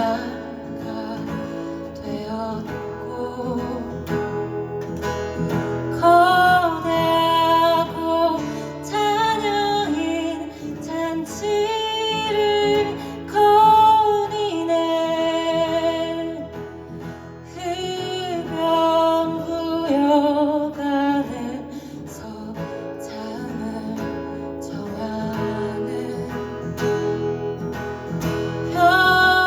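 Live band music: acoustic guitar playing under a singing voice that carries the melody in long, wavering notes.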